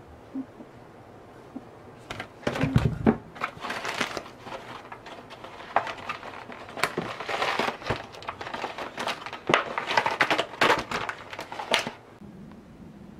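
Plastic produce packaging crinkling and rustling as groceries are handled and unpacked, with sharp clicks and a thump as items are set down, starting about two seconds in and stopping near the end.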